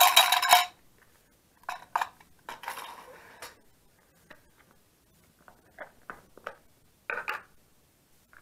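Playing cards and a small cardboard box being handled on a hard tile floor: scattered taps, clicks and rustles of card and cardboard, with a louder noisy burst in the first moment.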